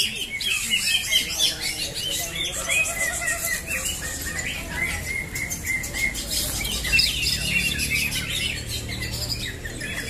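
Many caged green leafbirds (cucak hijau) singing at once: a dense, overlapping chorus of chirps and short whistles that never lets up.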